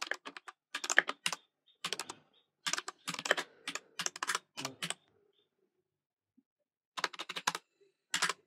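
Laptop keyboard typing in quick bursts of keystrokes, a terminal command being typed, with a pause of about two seconds before a few more bursts near the end.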